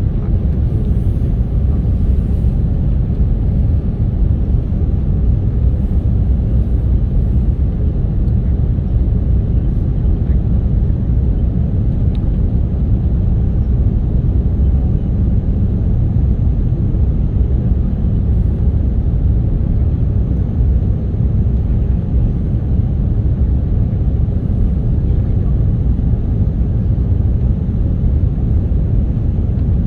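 Jet airliner cabin noise: a steady, loud low rumble of engines and airflow heard from inside the passenger cabin, with no distinct thumps or changes.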